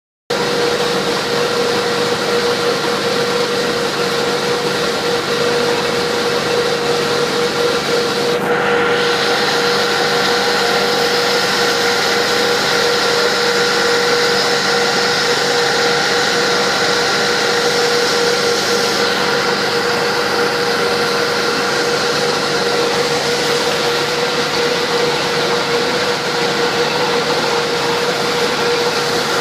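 Large industrial machine running continuously, with a steady mechanical hum and a constant mid-pitched whine; the uploader takes it for a paper-making machine. About a third of the way in, a louder high hiss joins, and it eases off again past the middle.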